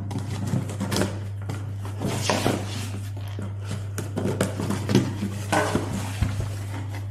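Hands opening and handling a delivery package: scattered clicks and knocks with short rustles of packaging, over a steady low hum.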